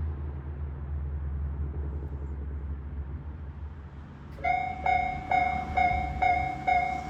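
Japanese railway level crossing's warning bell starting up about four seconds in, ringing a repeated two-tone ding roughly twice a second, the signal that a train is approaching. Before it, a low rumble fades away.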